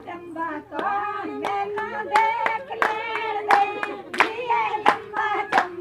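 Voices singing a song, with hands clapping along in time, about two claps a second.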